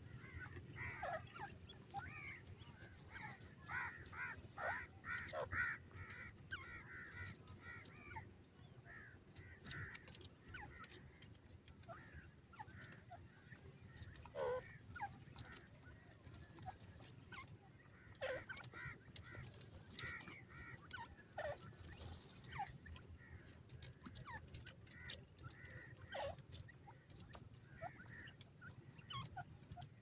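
Grey francolins giving soft, short chirping calls, crowded together for the first eight seconds or so and scattered after. Faint clicks and scratches come from the birds working the dry soil.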